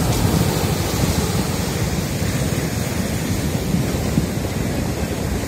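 Rough surf breaking and washing over a seawall road, with wind buffeting the microphone.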